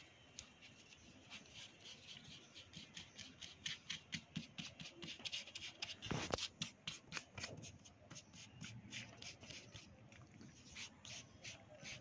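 Cotton wool rubbed quickly back and forth over oil pastel on paper, smearing and blending the colour: faint, dry rubbing strokes, several a second, busiest and loudest around the middle.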